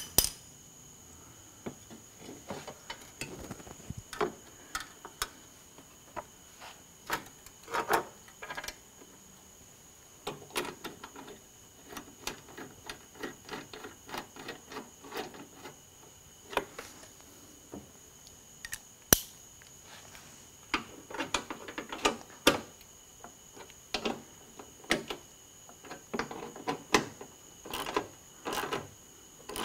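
Hand ratchet clicking in short quick runs as the headlight mounting bolts are driven, with scattered knocks and rubbing of tools against metal and plastic. A faint steady high tone runs underneath.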